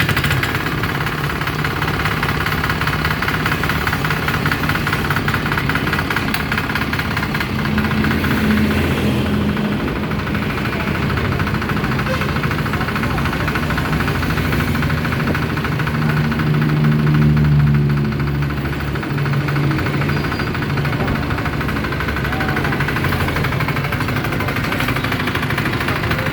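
The 5.2 hp single-cylinder diesel engine of a Firman FTL 900 HD farm machine runs steadily with a diesel knock. Its pitch and loudness shift a little a few times, swelling most at about seventeen seconds in.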